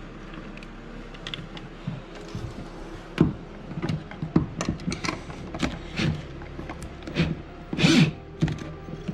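Mounting hardware being handled and fitted: irregular clicks, clinks and knocks of bolts, washers and nuts, with a short louder rasp near the end.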